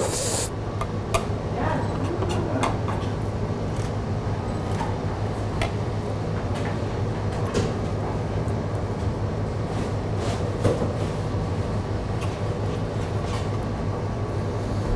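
Steady low hum of kitchen ventilation, with scattered light clicks and taps of a knife and bone tweezers on a plastic cutting board while a red mullet fillet is picked over for pin bones.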